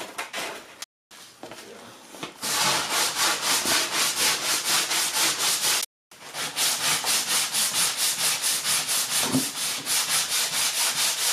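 Hand sanding of cured body filler (Bondo) on a car's fender with a sanding block, in quick, even back-and-forth strokes of about four a second, lighter for the first couple of seconds and then steady and loud.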